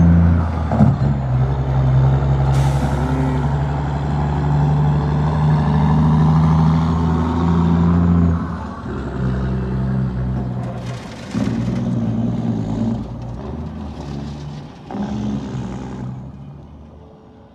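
Diesel engine of a long-nose Kenworth tractor hauling a loaded gravel dump trailer, pulling away under load, with a brief air hiss about two and a half seconds in. After about eight seconds the engine note drops and picks up again several times, then fades near the end as the truck moves off.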